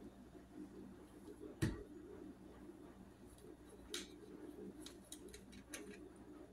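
Handling sounds from dressing a doll: a single knock about a second and a half in, then a sharper click near four seconds and a quick run of light clicks a second later.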